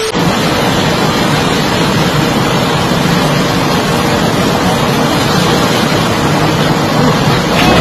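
Tracked excavator's engine running steadily while it works a boulder over a dump truck, a dense continuous rumble.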